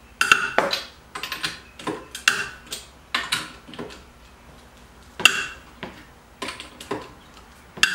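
Wrench and socket clinking on a car wheel's lug nuts as they are loosened by hand: scattered sharp metallic clicks, some with a brief ring, coming at irregular intervals.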